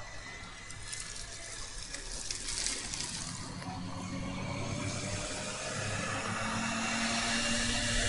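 Forshaga Shopper moped's small two-stroke engine buzzing, growing steadily louder and slightly higher as it approaches. A car's tyre hiss passes in the first few seconds.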